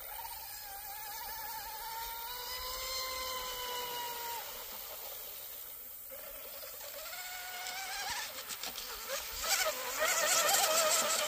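Brushless electric motor of a radio-controlled speed boat whining under throttle, powered by a low 25C-rated lipo. The pitch climbs over the first few seconds, drops off about four seconds in, then climbs again and is loudest and roughest near the end.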